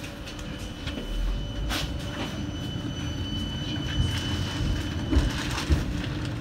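Vityaz-M 71-931M tram running along the track, heard from the driver's cab: a steady low rumble with a thin, steady high whine over it and a few short knocks.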